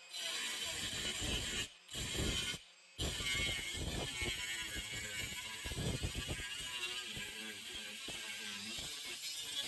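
Rapid, irregular mechanical clicking and rattling from a hand-worked tool mechanism, cut off twice briefly in the first three seconds.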